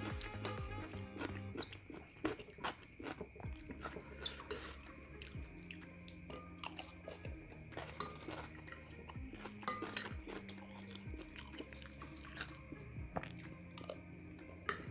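Close-up chewing and crunching of a mouthful of fried rice, with many short crisp clicks and the spoon now and then knocking against the glass bowl. Soft background music plays underneath.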